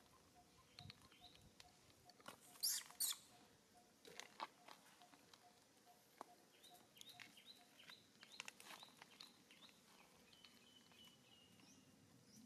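Faint scattered clicks and rustles of macaques handling small fruit and dry leaves on the ground, with two louder short rustles about three seconds in. A faint high chirp near the end.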